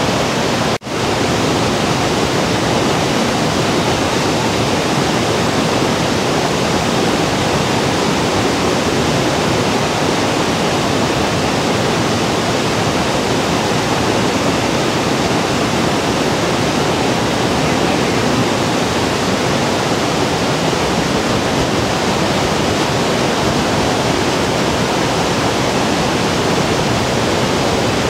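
Galboda waterfall, a roughly 30 m cascade over rock ledges, pouring steadily: a loud, even rush of falling water, with heavy spray from the strong flow. The sound drops out for an instant just under a second in.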